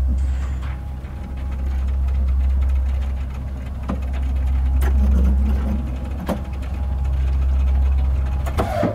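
Steady low mechanical hum, like a lift motor running, swelling louder and easing off about three times, with a few sharp clicks in the middle.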